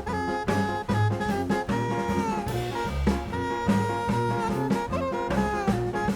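Upbeat jazzy background music with a walking bass line, drums and a horn melody.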